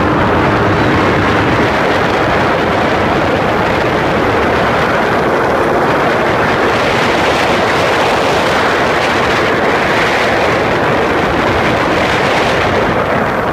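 Loud, steady rush of wind on the microphone and water noise from a Bombardier Sea-Doo personal watercraft running at speed, easing slightly near the end.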